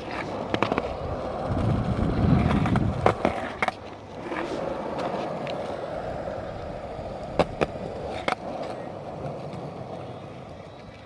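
Skateboard wheels rolling over a ramp with a steady rumble that swells for a moment about two seconds in. Sharp clacks of the board come now and then, several of them close together.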